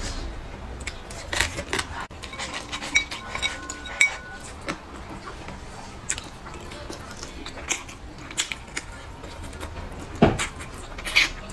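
Wooden chopsticks clicking and scraping against a ceramic bowl as the last bits of food are picked out, in irregular short taps, a few of them louder.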